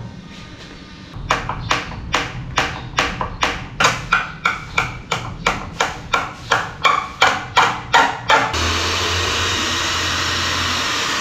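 A run of hammer blows, about three a second, then an electric drill running steadily as it bores into a laminated plywood cabinet panel.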